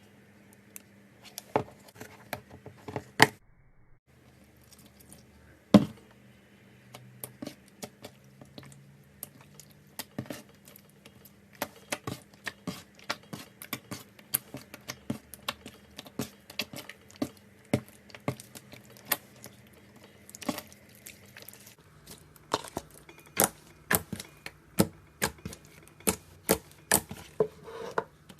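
Slime being squeezed and worked by hand, giving a steady stream of sharp sticky clicks and pops, several a second, with a few louder pops. The clicking runs on into a second clip about 22 seconds in.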